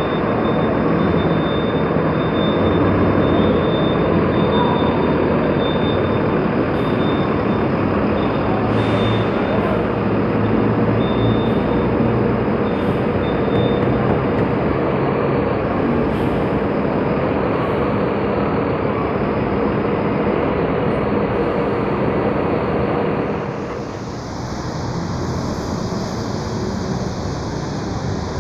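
City buses running and manoeuvring inside a covered bus terminal: a steady engine drone with a few short air hisses. About 24 s in the sound cuts to a bus and traffic passing on a wet street, with tyre hiss.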